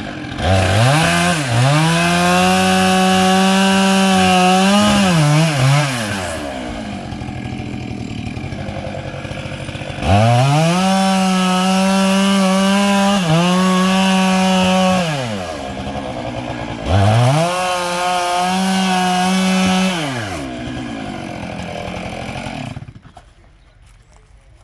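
Two-stroke chainsaw cutting into a tree trunk. It is run up to full throttle three times for several seconds each, drops back to idle between the bouts, and cuts out near the end.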